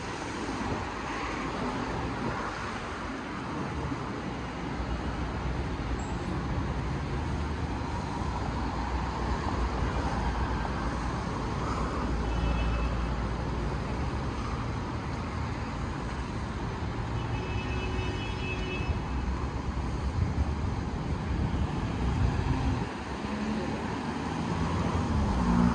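Road traffic on a city avenue: a steady rumble of passing cars' engines and tyres, swelling slightly about halfway through.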